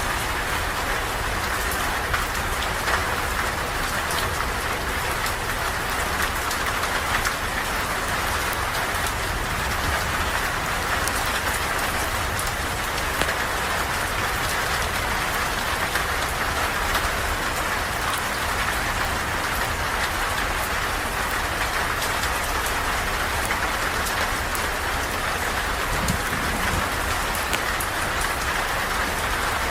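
Steady rain falling, an even hiss with scattered sharp drop taps.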